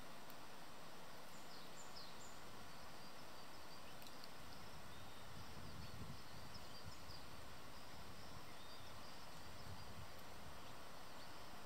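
Steady outdoor background noise with a few faint, short, high bird chirps scattered through it, most of them about one to two and a half seconds in, and a brief low rumble around six seconds in.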